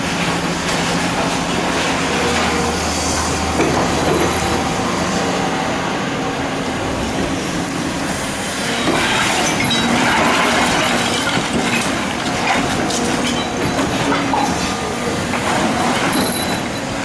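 Excavator at work: a steady low engine hum for the first few seconds, then irregular metallic clanking and squealing from the machine.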